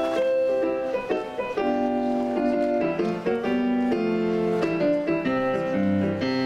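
Piano playing the instrumental intro to a song: a sequence of held chords, with low bass notes joining about five and a half seconds in.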